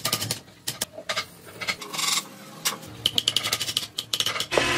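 Irregular sharp wooden clicks and knocks as a stave-built wooden bowl is handled and turned, with loose wood shavings rattling out of it. Near the end a steady machine noise starts.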